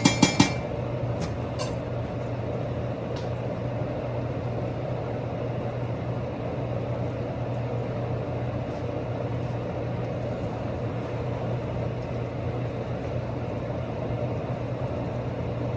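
Kitchen range hood exhaust fan running with a steady hum, while cooking goes on on the stove. A few sharp metallic clinks of utensils at the very start.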